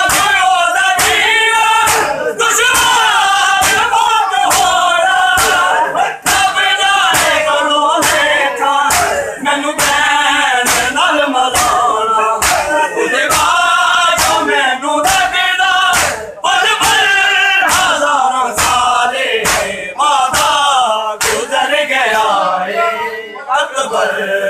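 Men's voices chanting a Shia noha together, over a steady beat of open hands slapping bare chests (matam), a little more than one slap a second.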